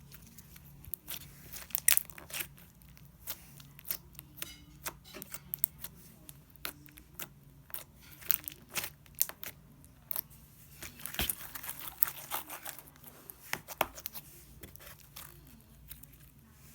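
Homemade slime being poked, stretched and squished by hand, giving irregular sticky clicks, crackles and small pops, the loudest about two seconds in and a dense run of crackling around eleven seconds in.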